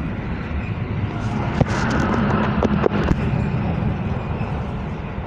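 Steady low rumble of an EN57AL electric multiple unit running along the track, heard from inside the carriage, with a few sharp clicks about a second and a half to three seconds in.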